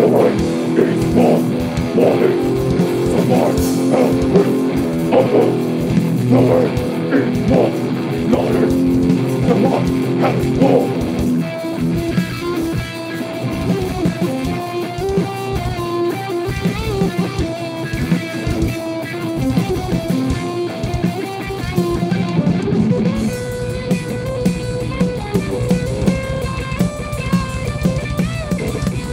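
Rock band playing live: electric guitar over a drum kit with steady drum hits. About eleven seconds in, the full chords drop away into a picked guitar line, and a long held note sounds in the last few seconds.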